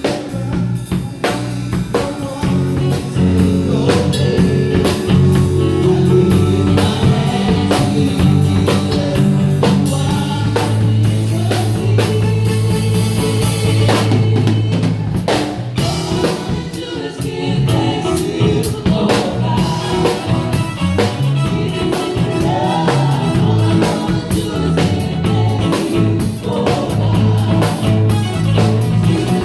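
A live band plays a worship song at a sound check: drum kit with steady beats over bass and other instruments, possibly with a singer.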